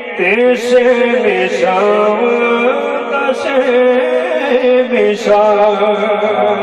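A man singing a naat, a devotional song, into a microphone, drawing out long wavering held notes.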